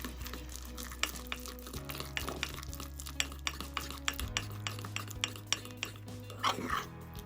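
A spoon stirring cake batter in a mug, with repeated small clinks and scrapes against the mug's sides as milkshake powder is mixed in. A louder scrape comes near the end.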